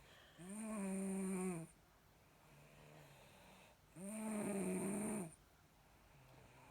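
Snoring: two long, pitched snores about three and a half seconds apart, each lasting over a second, with fainter breaths between them.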